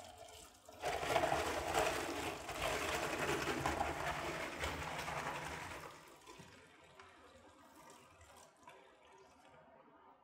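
Tap water running into a foil tray of aggregate in a steel sink while a hand stirs the gravel, rinsing out the sodium sulfate solution. The water noise is loud for the first five seconds or so, then drops off to a much quieter flow.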